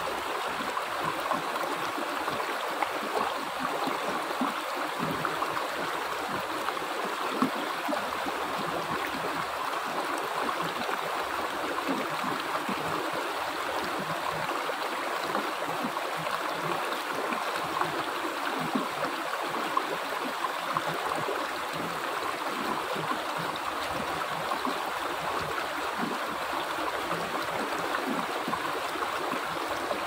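Small mountain stream running over rocks in little cascades: a steady rushing of water with gurgles and small splashes.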